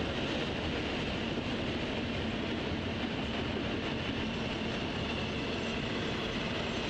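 Intermodal freight train's double-stack container and trailer cars rolling past, a steady rumble of steel wheels on the rails.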